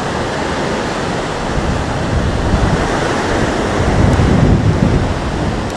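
Storm surf breaking and washing on the shore, with strong wind buffeting the microphone in gusts that grow stronger from about two seconds in.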